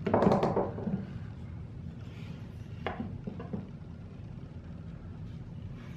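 Knocks and clatter as a quadcopter frame is tipped up on its side on a tabletop, loudest in the first second. It is followed about three seconds in by a few light clicks of handling under the frame.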